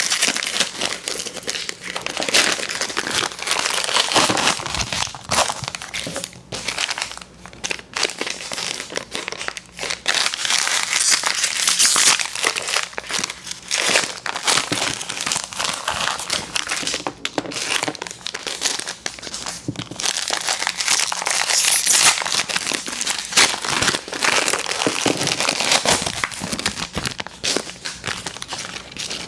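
Plastic candy wrappers crinkling and crumpling as they are handled, an irregular, continuous crackle with many sharp little peaks.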